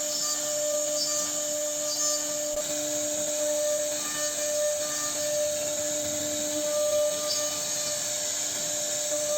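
CNC router spindle cutting wood, a steady high whine over a hiss of the bit chipping the wood.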